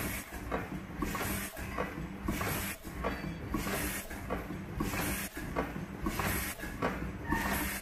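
Paper lid making machine running: rhythmic mechanical clatter over a steady hum, with a short hiss coming back about every second and a quarter as the machine cycles.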